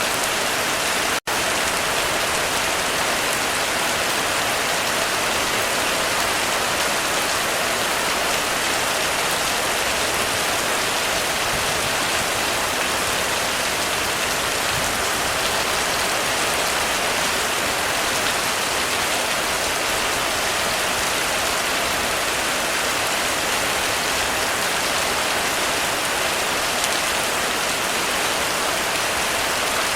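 Heavy rain falling on a roof: a steady, dense hiss with no thunder. The sound cuts out for an instant about a second in, then carries on unchanged.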